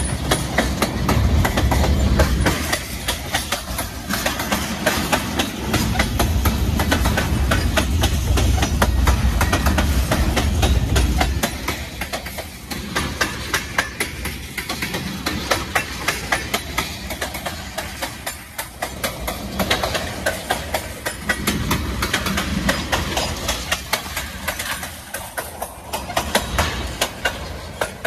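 Freight train of loaded tank cars rolling past, wheels clicking rapidly and steadily over the rail joints. The sound is heaviest, with a strong low rumble, for the first eleven seconds or so, then lightens while the clatter goes on.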